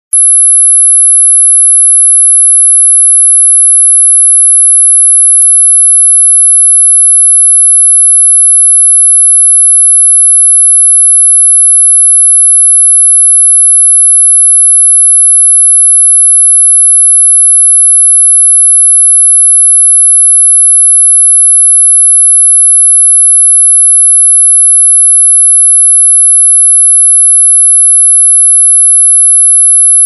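Mosquito ringtone: a single very high-pitched pure tone, held steady without a break.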